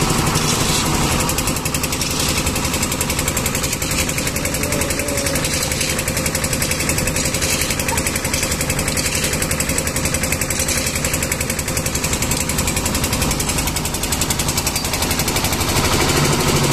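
Concrete mixer's engine running steadily at a slab pour, with a rapid, even knocking beat.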